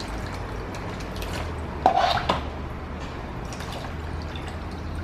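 Water trickling in a thin stream from a small plastic cup into a small plastic bottle, with a short plastic knock about two seconds in.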